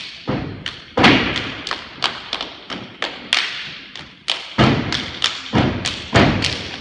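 Steppers stomping on a stage floor and clapping and slapping their chests and arms in a fast, syncopated step routine, a few heavy stomps standing out, each hit echoing in the hall.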